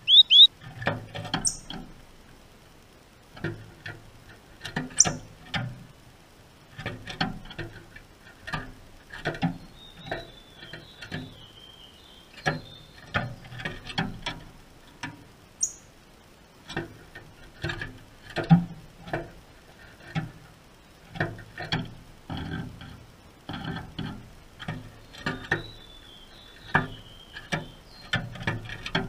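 Double-collared seedeater hopping about its wire cage close to the microphone: irregular knocks, taps and scuffs of feet and wings on the wooden perches and bars. Faint high chirps come twice, around the middle and near the end.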